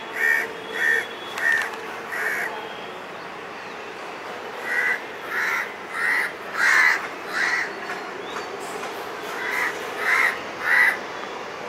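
A bird calling over and over in short, rough calls, a little over half a second apart, in three runs with pauses between them, over a steady background hum.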